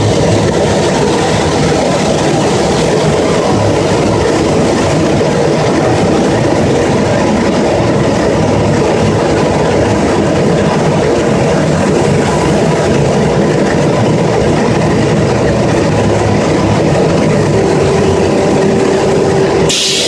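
CNC machine cutting the top profile of a handrail: a loud, steady machining noise with a constant hum, and a new steady lower tone setting in near the end.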